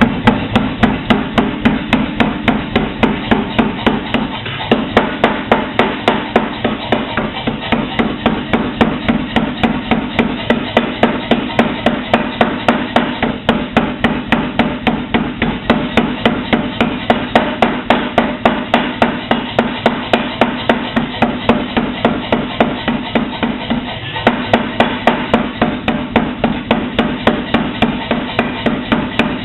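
Power hammer pounding a steel plate in a steady, rapid rhythm of about three blows a second over its running hum, drawing out and narrowing the plate. The blows stop briefly twice.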